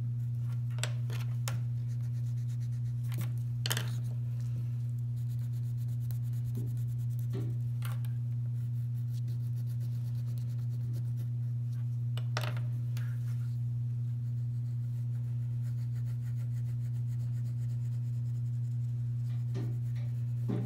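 A steady low hum, with a few brief scratches and taps of a wax crayon being rubbed on paper on a desk.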